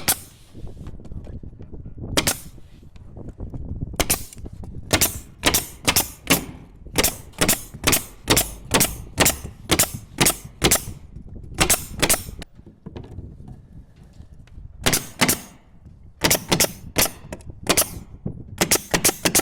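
Pneumatic nail gun firing nails into wood, a fast run of sharp shots at about two a second, with a pause of a couple of seconds midway before more shots near the end.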